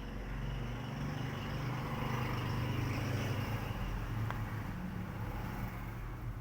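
A vehicle engine running as it passes, a low hum that grows louder towards the middle and eases off near the end, with one small click about four seconds in.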